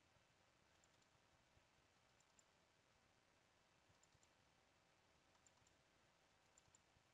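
Near silence, broken by faint computer mouse double-clicks, about five pairs spaced a second or two apart.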